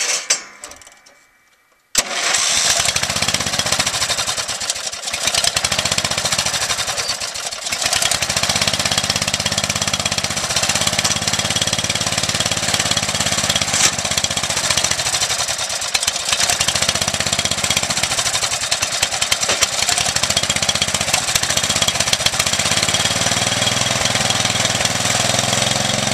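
Old riding lawnmower's engine catches about two seconds in and then runs steadily and loudly, its pitch shifting near the end.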